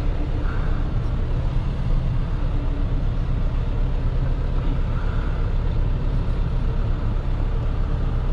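Tow truck driving on the highway: steady engine drone and road noise.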